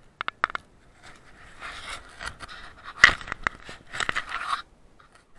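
Footsteps crunching and scraping on a snowy path close to the microphone, with a few sharp clicks near the start and a loud knock about three seconds in.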